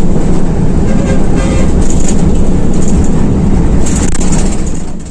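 Loud, steady engine and road rumble inside the cabin of an intercity coach on the move. The noise fades out near the end.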